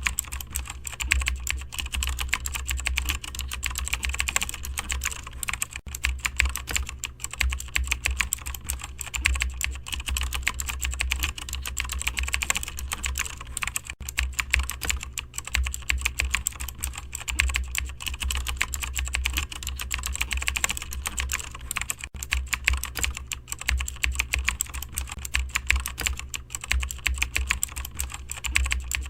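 Continuous fast typing on a computer keyboard, many key clicks a second without a break, over a steady low hum.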